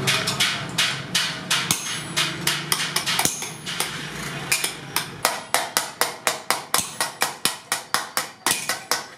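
Small hand hammer rapidly striking the rim of a sheet-iron cylinder held on a steel block, about four to five sharp metallic blows a second, the strikes more separate and distinct in the second half.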